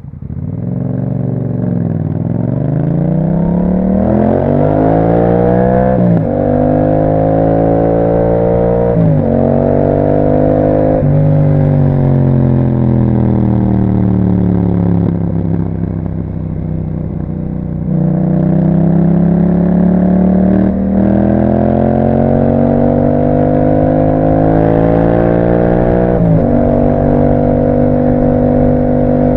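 2021 Yamaha MT-07's 689 cc parallel-twin engine through an Akrapovic exhaust, riding under acceleration. Its revs climb and drop sharply at three upshifts in the first dozen seconds, fall away as the bike slows, then pull up through two more gear changes before holding steady near the end.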